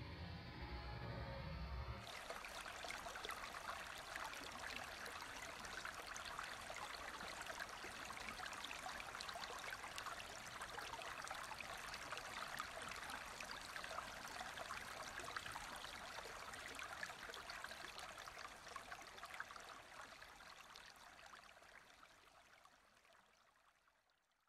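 A low hum stops abruptly about two seconds in, leaving a steady, crackly trickle of running water that fades away over the last several seconds.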